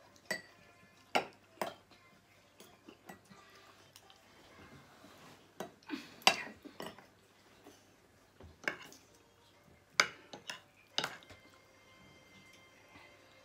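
Metal fork and spoon clinking against ceramic plates in scattered sharp clicks, with a couple of louder strikes around the middle.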